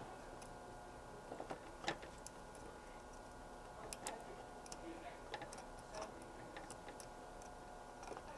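Faint, scattered small clicks and ticks of small electronic parts being handled and worked at a bench, the sharpest about two seconds in, over a faint steady electronic whine.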